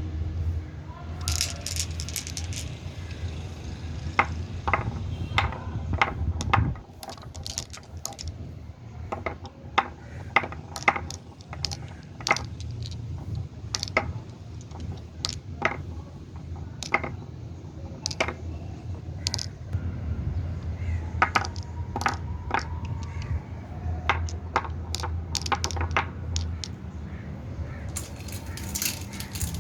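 Marbles rolling down a marble run track with a low rumble, clicking sharply and irregularly as they knock against the track, the wall and each other. The clicks come thickest in bursts near the start and near the end.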